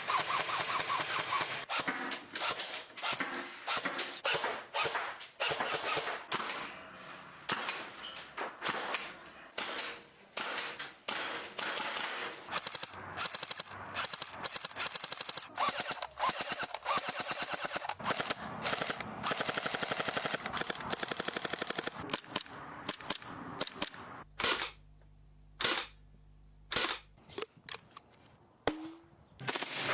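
Gas-powered airsoft guns firing long rapid automatic bursts of sharp cracking shots. About three-quarters of the way through there are a few separate single shots, then rapid fire resumes.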